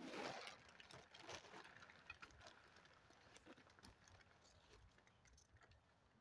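Faint rustling and crinkling of shiny black tent material being handled, with scattered small clicks that are strongest in the first second or so and then die away to near silence.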